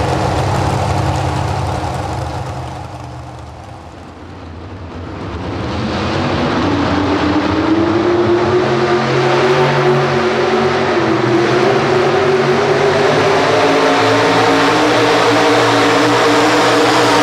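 Economy hot rod pulling tractor's engine under full load as it pulls the weight-transfer sled. The pitch climbs and then holds high. Before that, another pulling tractor's engine runs and dies away about four seconds in.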